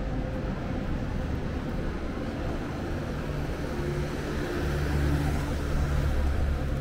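City street traffic: a motor vehicle's engine runs close by over a low rumble, growing louder from about three seconds in.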